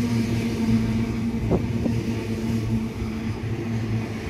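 Sydney Trains H-set (OSCAR) double-deck electric train pulling out of the platform close by: a steady low motor hum over wheel and carriage rumble, with a short squeak about a second and a half in.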